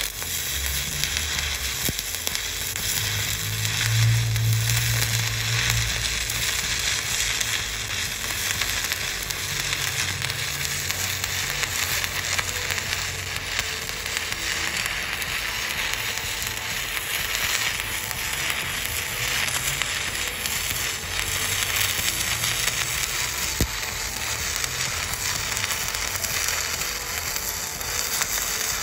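Stick (MMA) welding arc from a Volt TIG201BV 200 A inverter welder, the coated electrode burning along the joint with a steady crackle and sizzle.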